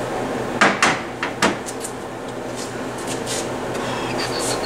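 A few sharp knocks and clatters of handling on a workbench, clustered about a second in, with fainter clicks later, over a steady low electrical hum.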